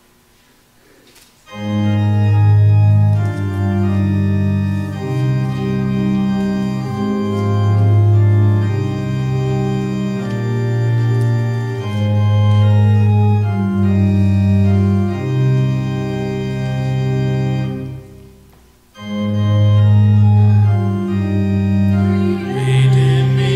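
Organ playing a slow, hymn-like melody in held chords. It begins about a second and a half in and pauses briefly about three-quarters of the way through, between phrases, before going on.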